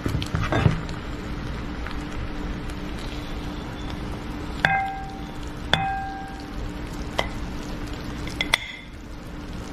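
Metal serving spoon scooping pot pie from a skillet and onto a ceramic plate, with sharp clinks that ring briefly about halfway through, again a second later, and near the end, over a steady low hum and hiss.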